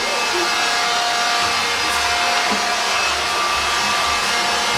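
Vacuum cleaner running steadily, its motor giving an even rushing noise with a steady whine.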